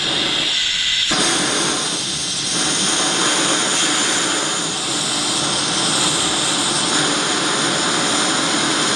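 Oxy-fuel gas torch flame burning with a steady, loud hiss, growing fuller about a second in, as it heats the small end of a connecting rod for a shrink-fit gudgeon pin.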